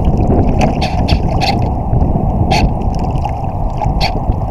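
Wind buffeting the microphone of a camera mounted on the deck of an International One Metre model yacht sailing through choppy water, with irregular short splashes of water against the hull.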